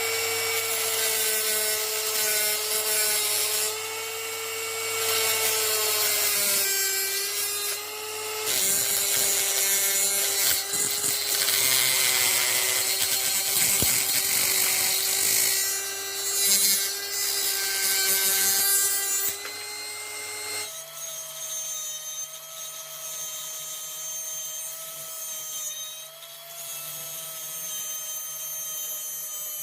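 Homemade angle grinder built on a 775 DC motor, running with a steady whine while its disc cuts and grinds, giving a harsh rasping noise for long stretches. About two-thirds of the way through, the whine jumps higher and the rasping mostly drops away as the motor runs more lightly.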